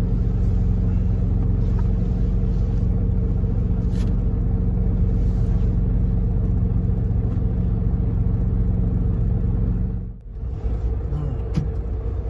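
Semi-truck auxiliary power unit (APU) running as a steady low drone under the truck's idle. About ten seconds in, the drone cuts out suddenly as the APU is switched off, leaving a quieter low rumble.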